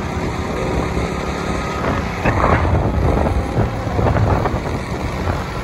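Running engine with road and wind noise from a vehicle moving along a road. About two seconds in there is a louder rush.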